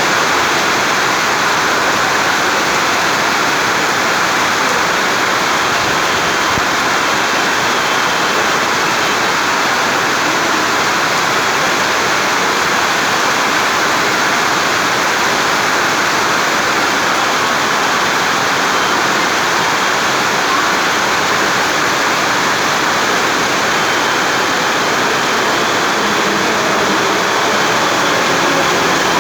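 Heavy rain falling: a loud, steady hiss of water.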